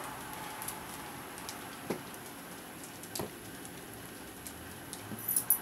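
Plastic wrapping crackling and ticking now and then as a vacuum-compressed spring mattress expands inside it, with a louder cluster of crackles near the end.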